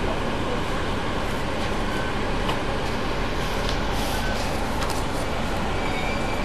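Double-decker bus engine and gearbox running with a steady low drone, heard from on board the bus.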